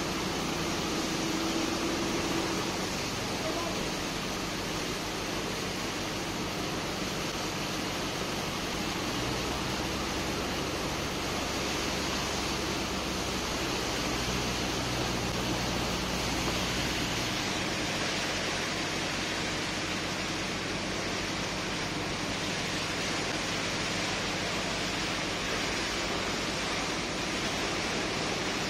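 Steady rush of water: a high-pressure hose jet blasting into a pile of sand in a barge hold, washing it into slurry that churns around a suction pipe's intake. A low machine hum from the pump runs beneath and shifts in pitch about a third of the way in and again about halfway through.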